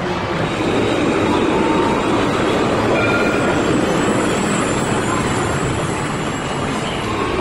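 C2-class low-floor tram (Alstom Citadis) running past close by on street track, a steady noise of steel wheels on rail and running gear, with a few faint brief tones about halfway through.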